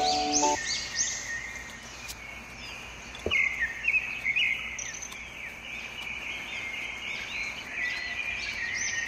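Small birds chirping and twittering, many quick high falling notes repeated throughout. Background music stops about half a second in, and there is one short knock about three seconds in.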